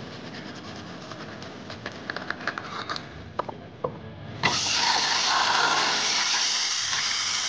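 Manual toothbrush scrubbing teeth, a soft scratchy rubbing with a few light clicks. About halfway through, a sink tap is turned on and water runs loudly and steadily into the basin.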